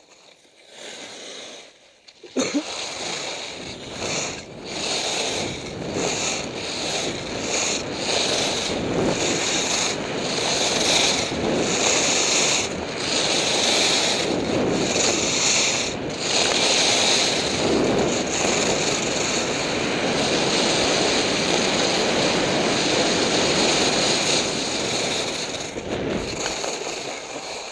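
Wind rushing over the microphone and skis hissing and scraping on snow during a fast downhill ski run. It starts suddenly about two seconds in, swells and dips about once a second with the turns, and dies away near the end as the skier slows to a stop.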